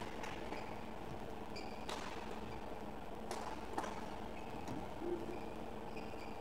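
Badminton doubles rally in a sports hall: a few sharp racket strikes on the shuttlecock, the clearest just before the four-second mark, with short shoe squeaks on the court floor over the steady hum of the hall.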